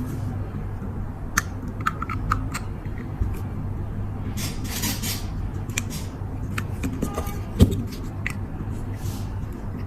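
Small metal clicks and taps of a hinge pin being worked into a lighter's lid hinge, with a sharper knock about three quarters of the way through, over a steady low hum.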